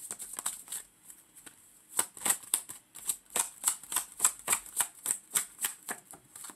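A deck of oracle cards being shuffled by hand, overhand style: a flurry of quick card clicks, a short lull about a second in, then a steady run of sharp card slaps about three a second.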